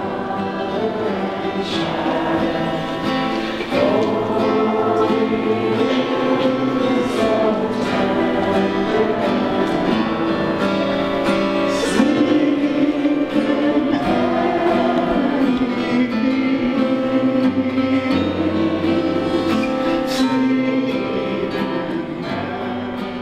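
Music with singing voices, choir-like, over instrumental accompaniment, with held and wavering sung notes; it fades down near the end.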